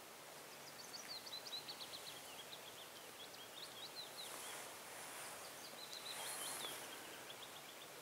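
A small songbird singing two songs, each a quick run of short high notes falling in pitch, faint against outdoor background noise. A soft rustle comes twice, about halfway through and near the end.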